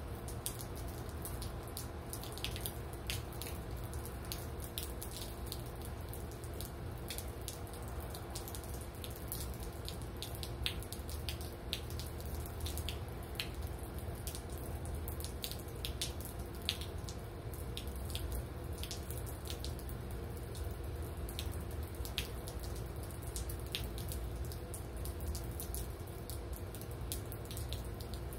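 Rain falling steadily, with many irregular drops tapping and dripping close by, and a faint steady hum underneath.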